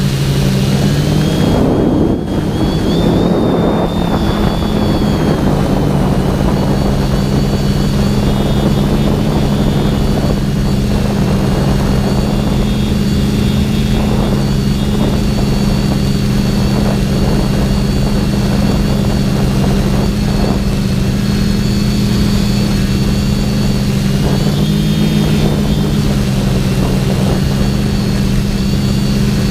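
TBS Discovery quadcopter's brushless motors and propellers whining steadily, recorded on board. A rush of wind comes in about two seconds in, and the motor pitch shifts briefly near the end.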